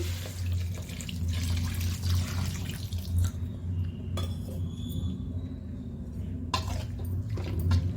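Water being poured into a pan of cooking masala for about three seconds, then a few clinks of utensils against the pan, over a steady low hum.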